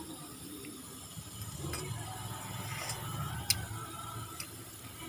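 Metal ladle tapping against the pot a few times while stirring a pot of soup, with the sharpest tap about three and a half seconds in, over a low steady hum.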